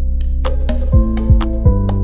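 Background music: held synthesizer chords over a beat of deep, falling drum hits and sharp clicks.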